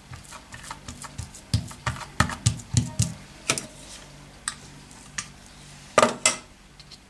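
Hands flattening a ball of poğaça dough and a flat-bladed tool pressing a row of cut lines into it on a silicone baking mat. A quick run of soft thuds and taps, then scattered single clicks, with two sharper clicks near the end.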